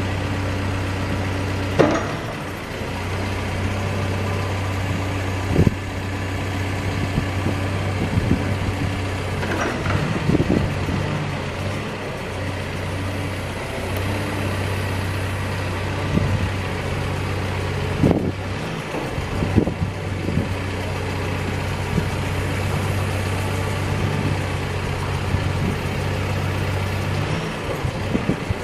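CAT backhoe loader's diesel engine running steadily, with intermittent sharp clunks and knocks as the machine's hydraulic attachments are worked.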